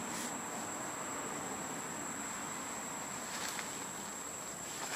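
Steady, high-pitched insect drone over a broad hiss of forest ambience, with a couple of faint brief ticks.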